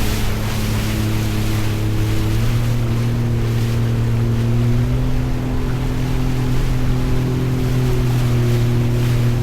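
Jet ski engine running steadily at speed, its pitch stepping up slightly about two seconds in, over the hiss of rushing water and wind.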